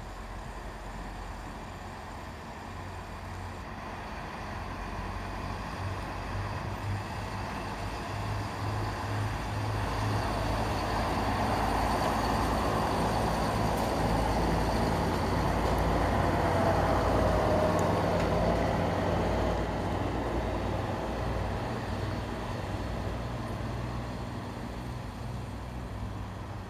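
Siemens Desiro diesel multiple unit passing, its underfloor diesel engines running with a low steady drone. It grows louder as the train comes close, peaks about halfway through, then fades as the train moves away.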